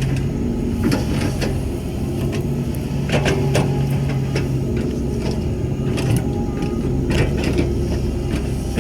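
Excavator's diesel engine running steadily under load, with irregular metallic clanks and knocks throughout.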